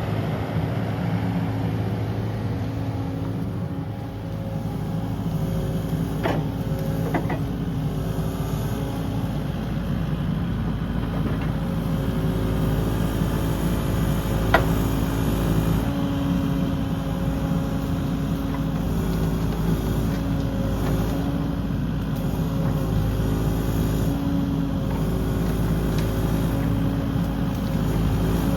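Kubota KX080 mini-excavator's diesel engine running steadily under load as it works, with a few sharp knocks over it, the loudest about halfway through.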